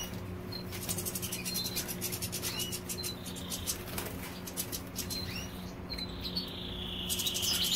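European goldfinches in an aviary giving short scattered call notes, with brief wing flutters. About seven seconds in, one breaks into a continuous twittering song. A low steady hum runs underneath.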